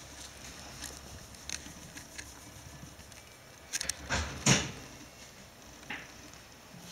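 Bedding fabric rustling with scattered light clicks, and a louder rustling thump about four and a half seconds in.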